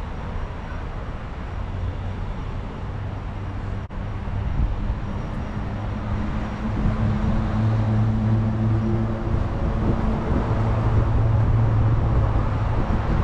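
Road traffic going past, with a vehicle engine's hum growing louder about halfway through.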